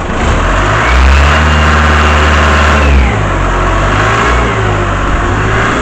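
Engine of an old portable air compressor just after starting. It runs up faster for about two seconds, then drops back about three seconds in to a steady run.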